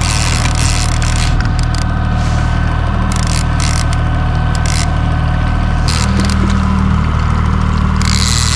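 Boat engine running steadily at trolling speed, a constant low drone, with scattered short clicks and scrapes of gear being handled on deck.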